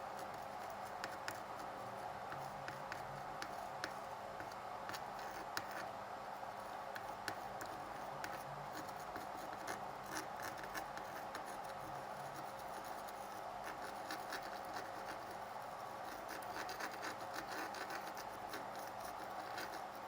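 Light, irregular scratching and ticking of a soldering tool being worked over a motherboard's CPU solder pads to clear the old solder while still hot, over a steady fan hum.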